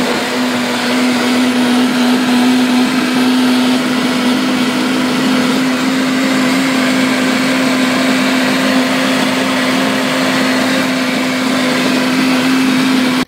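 Countertop blender running at a steady speed, its motor holding one pitch under the churning of peeled oranges being puréed into a thick juice. It switches off abruptly at the very end.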